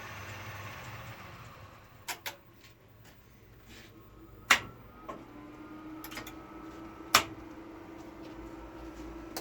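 Elevator machine-room equipment. A steady machine running note fades out in the first two seconds. Then come sharp switching clicks, two of them loud, typical of relays and contactors in the elevator controller. A steady hum sets in about five seconds in and holds.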